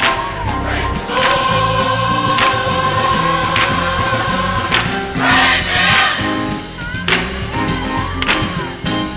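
Gospel choir singing with a live band, drum hits keeping a steady beat under the voices.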